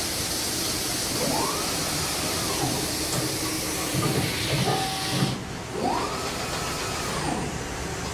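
Mazak Variaxis i-700T's two-pallet changer cycling: a motor whine that rises, holds and falls away, twice, over a steady hiss that thins out about five seconds in.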